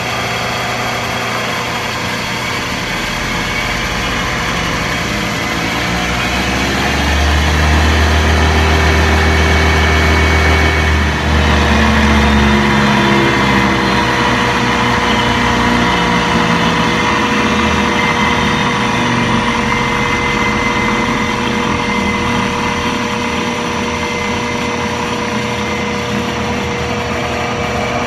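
Powermatic 90 wood lathe running on its belt-and-variable-pulley drive as the speed handle is moved to bring it up in speed. The running sound grows louder about six seconds in, and its pitch shifts as the speed changes: the variable-speed drive is working again after the belt was refitted.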